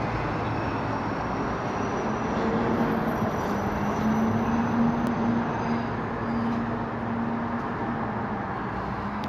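Steady outdoor din, with an engine-like hum that rises in the middle for several seconds and then fades.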